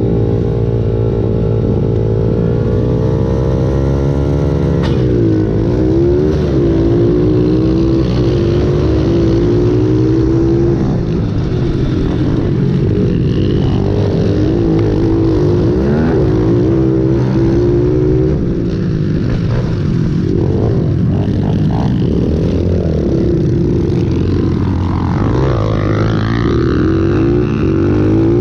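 Pit bike's single-cylinder four-stroke engine racing, heard from on board: it revs at the start, then runs hard with repeated rises and drops in pitch as the rider works the throttle and shifts. Other bikes' engines are mixed in.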